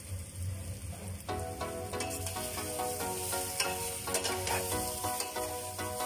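A spoon stirring meatball and vegetable stew in a stainless steel pot, with a steady sizzle and scattered clinks. Background music comes in about a second in.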